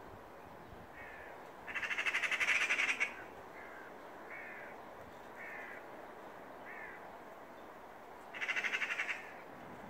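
Eurasian magpies giving their harsh, rapid rattling chatter, the alarm call they use to mob a cat: two loud bursts, one about two seconds in and one near the end, with fainter short calls in between.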